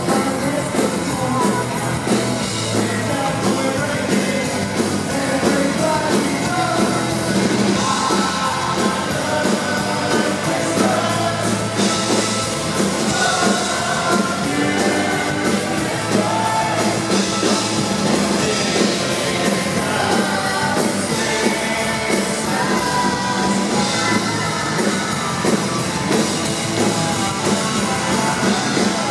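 Live rock band at full volume: distorted electric guitars and drums, with a woman singing and shouted vocals over the top.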